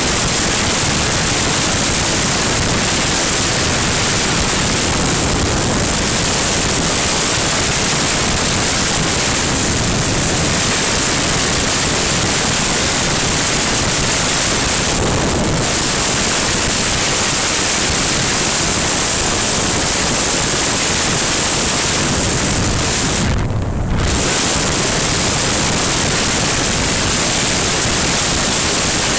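Steady rush of wind buffeting the microphone of a motorcycle-mounted camera at road speed, a hiss that drowns out the engine. The hiss briefly dips and turns duller about three-quarters of the way through.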